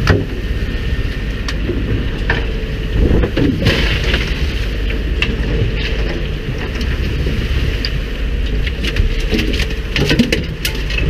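Steady low rumble of a fishing boat's engine and the sea, with sea spray and splashing water hitting the hull and scattered sharp knocks.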